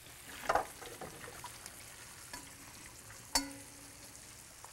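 Faint steady sizzle of chicken frying in hot olive oil. About half a second in there is a short splash of cooked carrots being drained at the sink, and about three and a half seconds in a single ringing metal clank.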